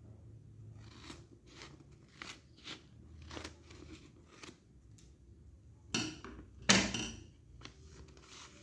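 Packaging being handled and opened by hand: a string of short scraping and rustling noises, with two louder ones about six and seven seconds in.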